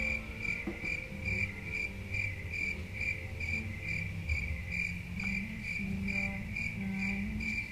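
Cricket chirping in a steady run of short, high chirps, about four a second, over a faint low hum. It is laid in as a comic 'crickets' silence effect.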